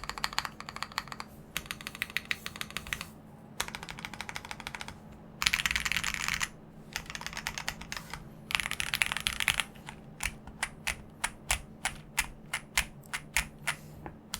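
Typing on a Tiger80 Lite TKL mechanical keyboard with stock Gateron CJ linear switches in a PC plate, foamed and tape-modded, with DCX keycaps. Quick runs of keystrokes with short pauses, two dense, louder flurries near the middle, then slower, evenly spaced single keypresses about three a second near the end.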